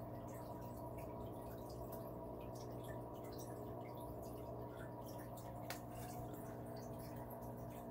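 Aquarium pump running with a steady hum, and water dripping and trickling at the surface. One sharp tick comes about three-quarters of the way through.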